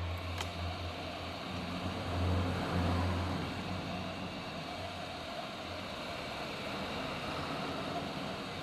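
Heat gun blowing hot air: a steady rush of air over a fan-motor whir, used to soften the back-glass adhesive of a phone. A low hum is strongest for the first three seconds or so, and there is one click just after the start.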